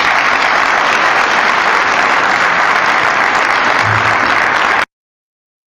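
Audience applauding steadily after a talk ends, cut off abruptly about five seconds in, followed by silence.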